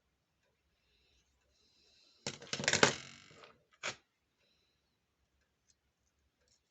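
A brief clatter of small hard objects lasting about a second, followed by one sharp click, as parts of a pump's non-return valve are handled.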